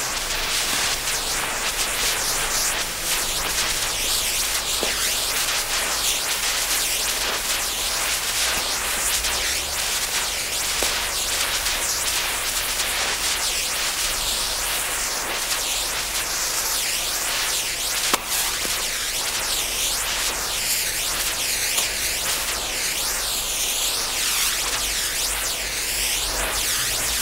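Lit fuse burning, a steady sputtering hiss with fine crackling, and one sharp crack about 18 seconds in.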